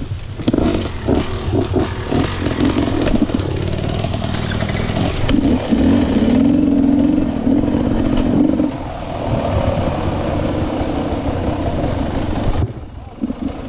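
Enduro dirt bike engine revving in short throttle bursts, then held at steadier revs for a few seconds, dropping away briefly near the end.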